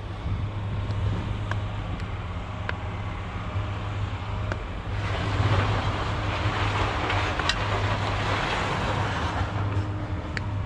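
A vehicle engine running steadily, with a rushing noise swelling about halfway through and a few light clicks.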